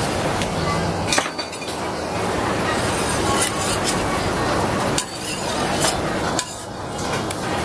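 Metal spatula clinking and scraping against a steel crepe griddle as a crepe is lifted and folded over: several sharp clinks over a steady background hiss.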